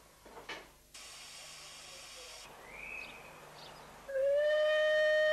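Steam hissing from a 15-inch gauge miniature steam locomotive, then its whistle sounding one long, steady, loud note about four seconds in. It is preceded by a short clunk about half a second in as a signal-box lever is worked.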